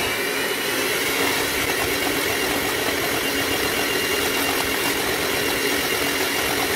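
Handheld electric mixer running at a steady speed, its twin beaters whirring through creamed butter, sugar and egg in a stainless steel bowl.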